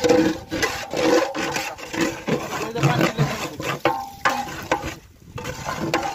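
Long steel ladle stirring rice and lentils in water in a large aluminium pot, scraping against the pot walls and bottom in repeated irregular strokes, with sloshing.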